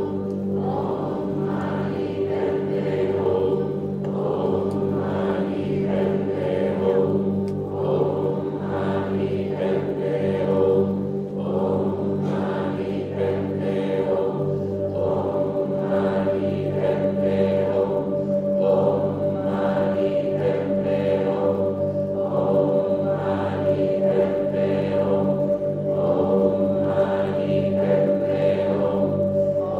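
Sacred vocal music: voices singing a slow mantra-style chant over steady held drone tones.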